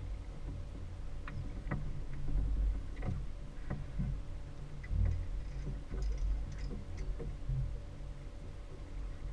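Outboard motor idling with a steady low hum, broken by a couple of heavier low thumps, with scattered light clicks and knocks over it.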